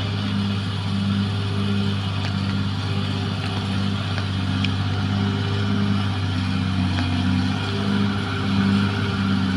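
Caterpillar D6R XL bulldozer's diesel engine running steadily under work, a low drone with a regular throb about twice a second.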